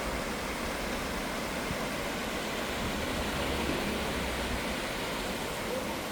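Waterfall: water rushing steadily.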